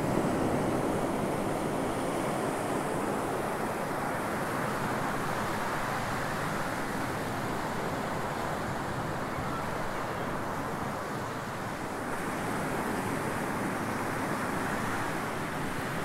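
Small waves washing onto a sandy beach, a steady rushing hiss, with some wind on the microphone.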